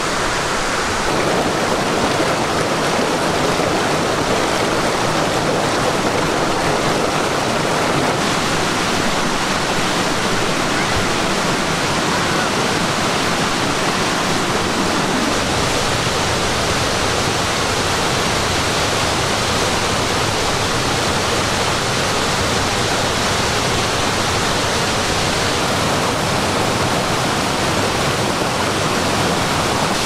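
Waterfall and stream water rushing steadily, a dense, even wash of noise that holds the same level throughout.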